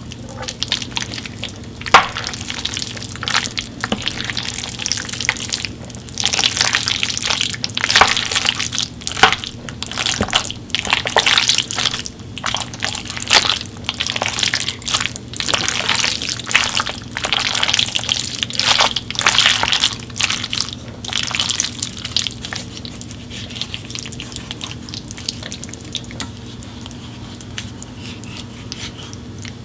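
Water from a kitchen tap splashing and dripping in irregular spurts, with light clicks and knocks, over a steady low hum; it quiets in the last several seconds.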